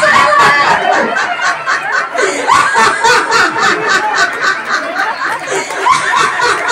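A woman laughing loudly and at length into a handheld microphone.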